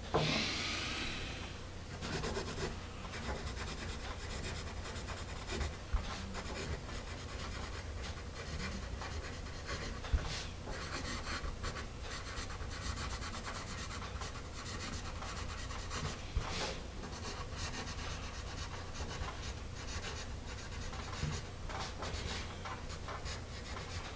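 A Paper Mate EverStrong wood-cased graphite pencil scratching across paper as it writes in cursive, a steady light rasp with a few sharper ticks.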